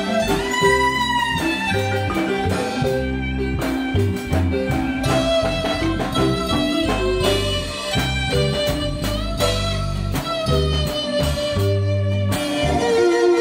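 Guatemalan marimba band playing: several players strike a large wooden marimba over sustained electronic keyboard chords and a walking bass line.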